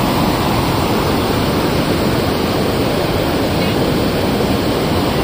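Released river water rushing and churning into whitewater, a loud, steady, unbroken rush.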